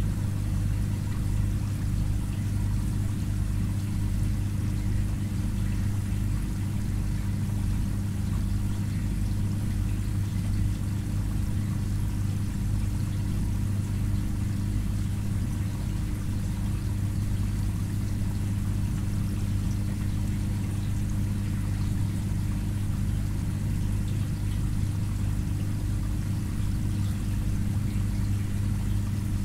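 Aquarium filter pump running: a steady low hum with water pouring and trickling.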